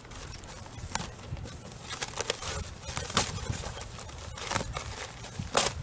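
Scattered rustles and sharp taps of packaging being handled while a boxed tent is unpacked, coming at irregular moments.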